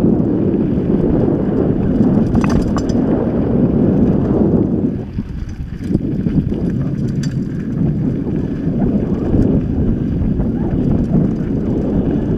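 Mountain bike riding fast over dirt singletrack, heard through an action camera's microphone: wind buffeting the microphone over tyre noise and the bike rattling on bumps, with a couple of sharp clacks.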